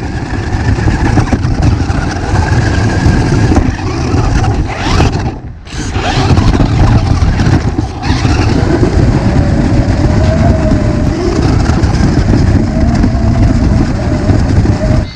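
Radio-controlled car driving, its electric motor and drivetrain giving a loud, continuous rumble with a faint wavering whine; the sound drops away briefly about five seconds in.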